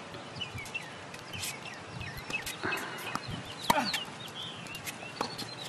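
Tennis ball struck by racquets in a rally, a sharp pop every second or so, the loudest about two-thirds of the way in. Birds chirp steadily throughout.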